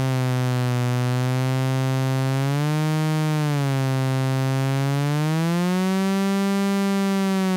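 STG SoundLabs .VCO analog oscillator sounding a steady, low buzzy tone whose pitch is being wandered by its built-in random drift generator: it bends up and back about three seconds in, then rises higher from about five seconds and sinks back near the end.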